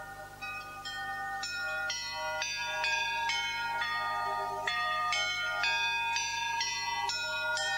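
Background music of bell-like chime notes, struck one after another and left to ring over each other, growing busier about a second and a half in.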